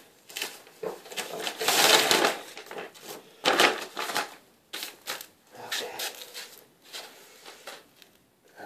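Crumpling and rustling as garbage and carpet scraps are gathered up by hand, with scattered crackles and knocks. It is loudest about two seconds in and again about three and a half seconds in.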